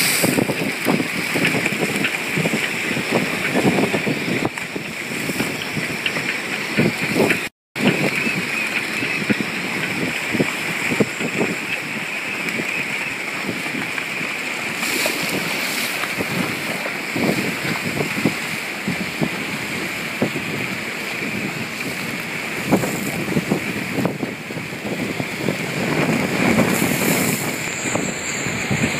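Gusty storm wind buffeting the microphone, with choppy water churning and slapping against the floating docks. The sound cuts out for a moment about eight seconds in.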